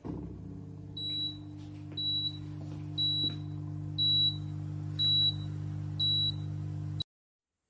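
A compact dishwasher's electronic beeper sounding six short high beeps, one a second, over the steady hum of its running motor. The hum starts suddenly and everything cuts off abruptly about a second before the end.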